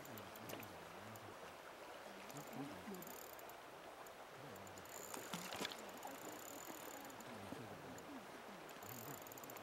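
Faint steady rush of river current running over shallow riffles, with a few light clicks about five seconds in.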